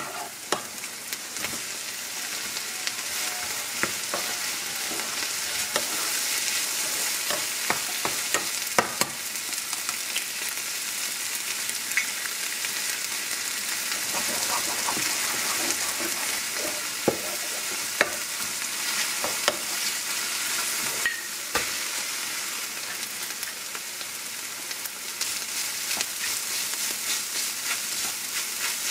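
Food sizzling in oil in a ceramic-coated frying pan as it is stir-fried with a wooden spoon: a steady sizzle with irregular clicks and scrapes of the spoon against the pan. The pan holds green onions, then mushrooms, onion and a scrambled egg, then rice for curry fried rice.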